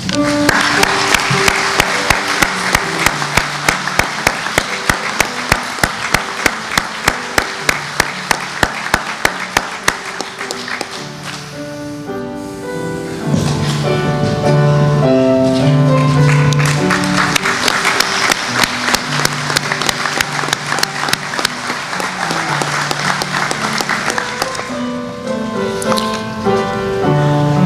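Audience applauding over instrumental music, with sharp claps standing out in the first part and the music carrying on as the clapping thins.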